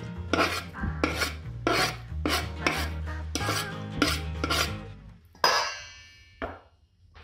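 Fork scraping and mashing guacamole against a stainless steel bowl, about two strokes a second. About five and a half seconds in the fork is set down in the bowl with a single ringing metallic clink.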